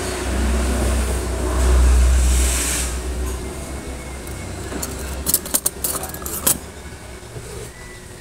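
A motor vehicle passing by, a low rumble that swells to its loudest about two seconds in and then fades. It is followed by a quick run of sharp clinks, a metal spoon against plates, between about five and six and a half seconds in.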